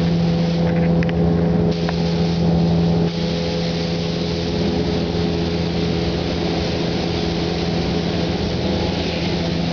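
Steady mechanical hum with a rushing of air, as from a spray booth's ventilation fan running; the level eases slightly about three seconds in.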